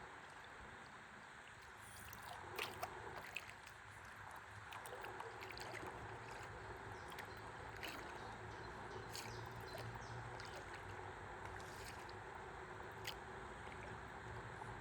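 Gentle river water lapping and trickling against a stand-up paddleboard as it floats, with scattered small ticks and splashes.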